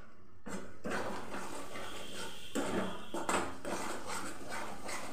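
A metal spatula scraping and stirring thick masala paste around a metal kadai, in repeated strokes about one a second.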